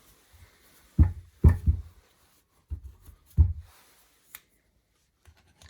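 A few dull knocks and clunks of the small steel vise being handled on the bench while it is measured, in a cluster about a second in and again about three and a half seconds in, with a couple of fainter taps later.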